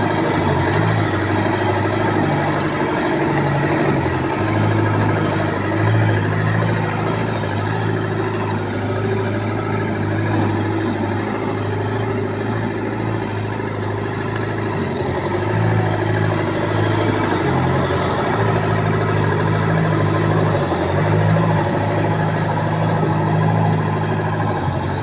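Engine of a Bobcat construction machine running steadily at low revs, its note briefly dipping a couple of times midway.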